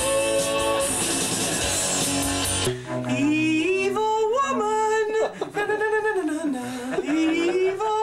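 Full band music with a held sung note over guitars, which cuts off abruptly about two and a half seconds in. An upright bass then plays with a bow, in slow sliding notes that rise and fall in pitch.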